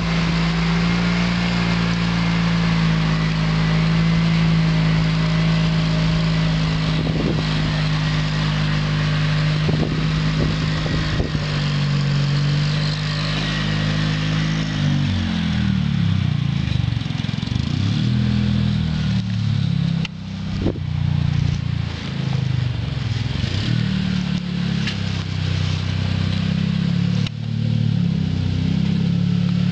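Homemade tractor's two-cylinder Oka car engine running loud and steady at first. From about halfway its speed keeps rising and falling, with a few clacks among it.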